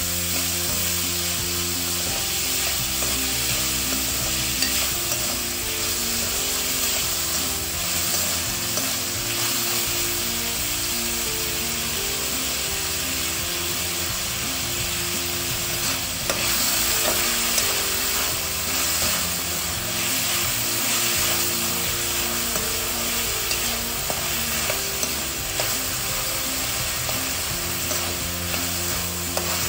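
Diced vegetables sizzling in oil in a stainless-steel wok on high flame, with a metal spatula stirring and tossing them; a steady frying hiss broken by frequent small clicks and scrapes of the spatula on the pan.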